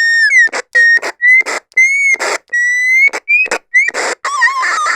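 A series of short whistle notes, some held level and some sliding gently up or down, alternating with sharp bursts of hiss.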